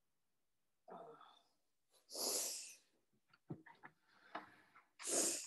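Handling noise of the recording device as it is repositioned: two loud rustling puffs close to the microphone, with a run of small clicks and knocks between them.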